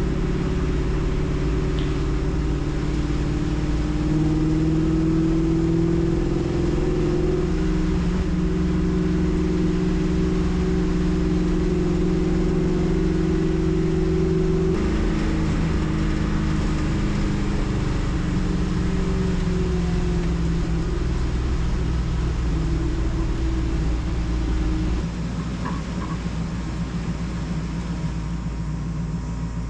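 Race car engine heard from inside the cockpit, running at moderate speed with its pitch drifting slowly. The pitch shifts about halfway through, and the engine gets a little quieter near the end as the car eases off.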